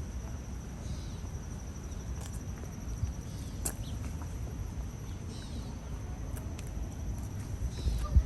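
Outdoor ambience: a steady low rumble on the microphone, with a few faint high chirps and small clicks now and then.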